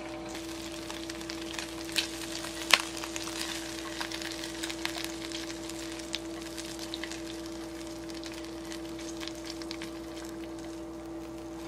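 Pieces of charcoal-grilled chicken being put onto a bowl of rice: a run of small crackles and clicks, with two sharper clicks a little over two seconds in, over a steady low hum.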